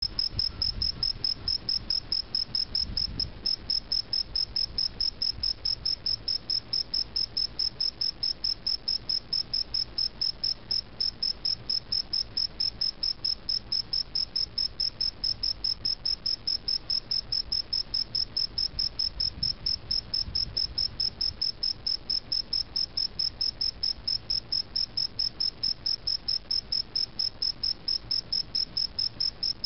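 A male cricket singing at very close range: an even, unbroken series of short high chirps, about three a second.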